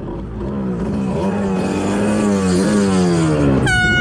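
Kawasaki SX-R 800 stand-up jet ski's two-stroke twin engine running, its pitch wavering and then falling. A short, high ringing tone cuts in near the end.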